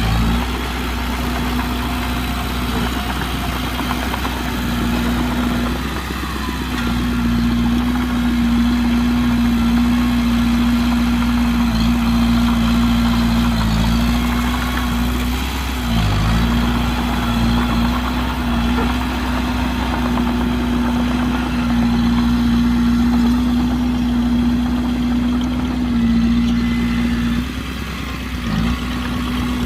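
Heavy earthmoving machine's diesel engine running steadily, its pitch dipping briefly about halfway through and again near the end.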